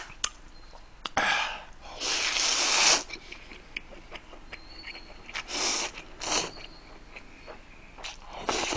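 Instant noodles in cold broth being slurped with chopsticks: about five loud slurps, the longest lasting about a second, with quiet gaps between.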